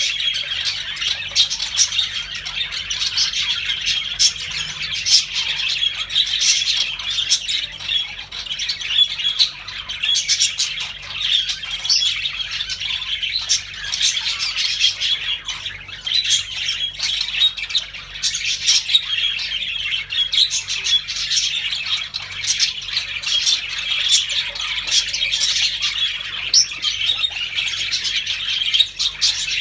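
Several budgerigars chattering and chirping continuously, a busy mix of warbles, chirps and sharp squawks.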